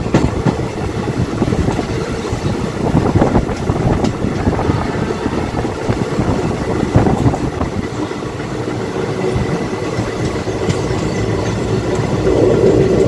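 Train running along the track, heard from aboard: a steady rumble of wheels on rails with quick, irregular clatter over the rail joints, growing a little louder near the end.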